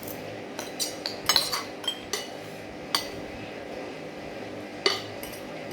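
Metal cutlery clinking against a plate: a quick cluster of clinks in the first two seconds, then single clinks about three seconds and five seconds in, over a steady low hum.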